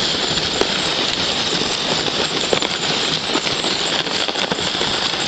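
Horse-drawn sled sliding over packed snow: a steady hiss and crunch from the runners, with the horse's hooves in the snow and a few faint clicks.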